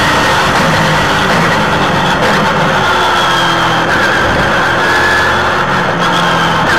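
Trans Am race car's engine running hard at race pace under heavy wind and road noise, heard from the hood; its pitch shifts as the car brakes and turns through a corner, and a high whine rises in the second half as it accelerates out.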